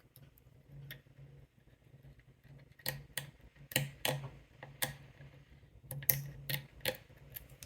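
Lock pick and tension wrench clicking in the keyway of an American 1100 padlock: about nine sharp metallic clicks at irregular intervals, most of them in the middle part, as the pins are worked and set.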